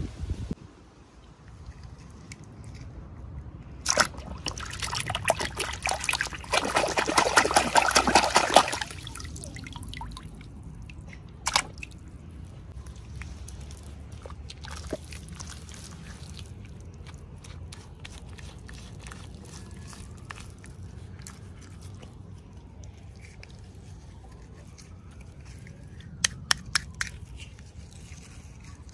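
Packaging being handled, with a dense run of crinkling and crackling for several seconds near the start, then quieter scattered clicks and taps.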